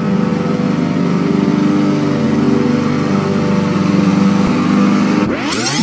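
John Deere riding lawn tractor's engine running steadily while it mows grass. About five seconds in it cuts off abruptly and guitar music starts.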